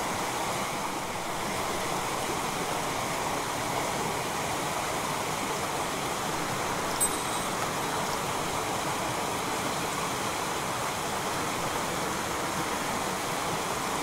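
Small mountain stream running steadily over rocks, an even rushing of water. A short click sounds once about halfway through.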